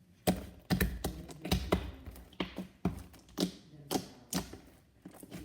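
Sticky slime being kneaded and stretched by hand, giving about a dozen sharp, irregular clicks and pops as air pockets in the freshly pigmented slime burst.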